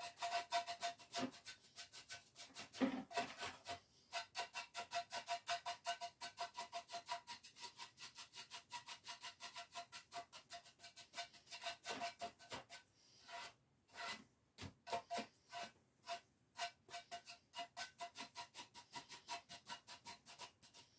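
Chip brush buffing dark wax on a lamp with quick flick-and-swish strokes: a steady run of short brushing swishes, about four a second, with a brief pause about a third of the way in and another just past halfway.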